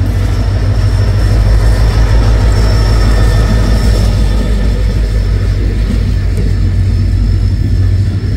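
Train passing over a level crossing: a loud, steady low rumble of wheels running on the rails, with faint high steady tones above it.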